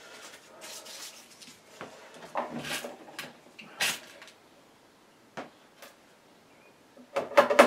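Small knocks and clicks of things being handled, then near the end a rapid run of sharp taps from a hammer driving a nail into a wooden picture frame to hold the painting in.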